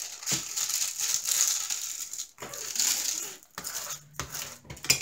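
Clear plastic cover film on a diamond-painting canvas crinkling and rustling as hands smooth and press the canvas flat, with a few short sharp clicks.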